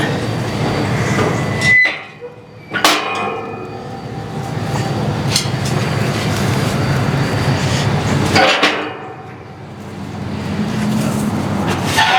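A diesel engine running steadily, with sharp metallic clanks near the start. The engine noise drops away briefly twice.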